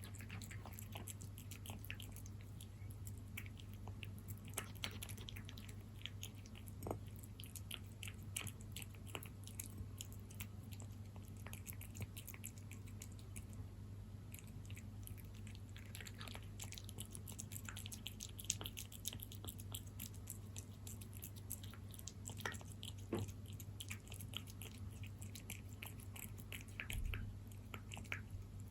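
A cat eating moist wet cat food (salmon), with quick, irregular lapping, smacking and chewing clicks.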